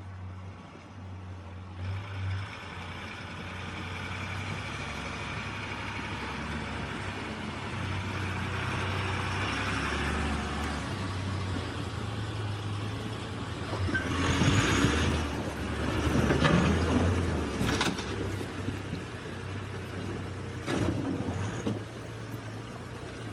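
A heavy vehicle's engine running steadily. Its sound swells into a louder, noisier stretch partway through, followed by two sharp short bursts a few seconds apart.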